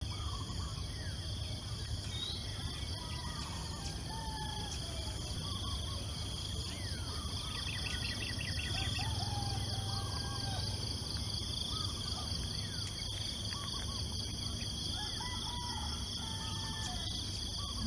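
Morning chorus of various birds whistling and chirping, with a steady high-pitched insect drone underneath.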